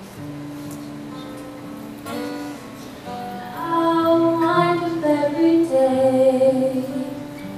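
Acoustic guitar strummed and picked, accompanying a woman singing a slow song; her voice comes in about halfway through and is the loudest part from there on.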